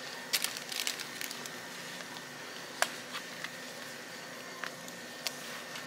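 Shop room tone: a steady background hum with scattered light clicks and rustles, one sharper click about halfway through.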